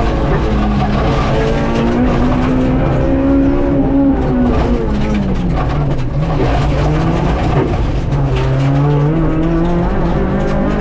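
Honda Civic Type R FN2's four-cylinder engine heard from inside the cabin on a rally stage, revving up and dropping through gear changes. The revs fall low about six seconds in as the car slows for a gravel corner, then climb again through the shifts.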